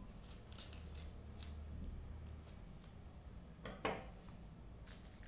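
Scissors snipping through clear packing tape in a series of short, crisp cuts, followed by one louder scratchy sound about two-thirds of the way through.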